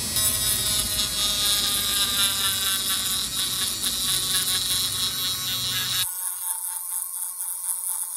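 Small electric rotary sanding tool buzzing as it roughens the back of a Zippo lighter's metal case. The lower part of the sound drops away about six seconds in.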